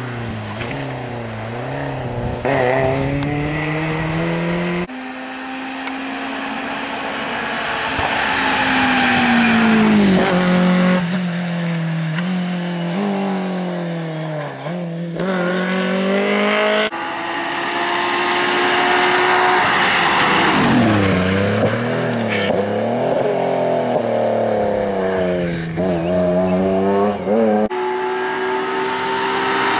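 Rally cars at racing speed, one after another, engines revving hard: pitch climbs through the gears, drops sharply when the driver lifts and brakes, then climbs again. Several separate passes, each breaking off suddenly.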